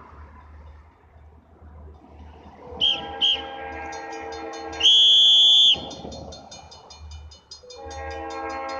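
Diesel locomotive's multi-chime air horn sounding long blasts as the train nears the grade crossing, the horn starting about three seconds in, fading, and coming back louder near the end. A crossing bell dings rapidly and evenly under it. Two short, high whistle-like notes come just before the horn starts, and a louder, longer high note follows about five seconds in.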